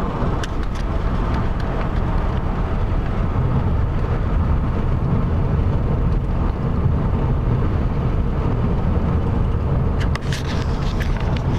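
Steady low rumble of road and engine noise inside a moving car's cabin, with a few light clicks near the end.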